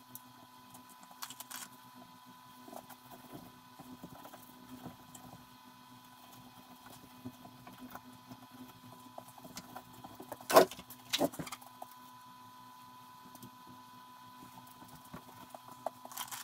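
Hands handling parts inside an opened Svarog REAL ARC-315 welding inverter: scattered light clicks, taps and rustles, with two sharp knocks a little past the middle. A faint steady hum runs underneath.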